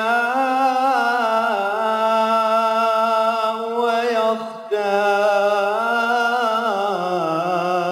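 A man's voice reciting the Qur'an in melodic tajweed style, held long on ornamented, wavering notes. There is a brief breath about four and a half seconds in, and the voice falls in pitch to close the phrase at the end.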